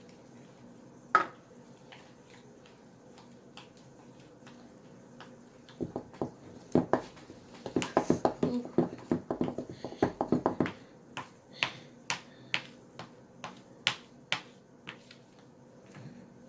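Sticky homemade slime being worked and stirred: a run of sharp, wet clicks and pops. There is one loud click about a second in, the pops come thick and fast from about six to eleven seconds, then thin out to scattered single clicks.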